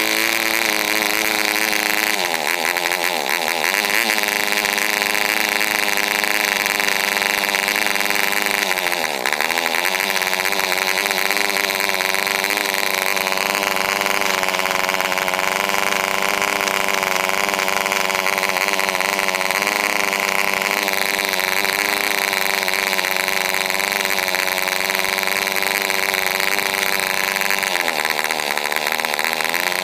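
PAW 1.5cc model aero diesel engine, muffler removed, running steadily at high speed on a test stand. Its speed dips briefly a few times, a few seconds in, again about nine seconds in, and near the end as the compression screw is turned.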